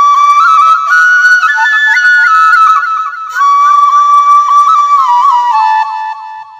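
Background music: a single melody line of long held notes broken by quick grace-note flicks.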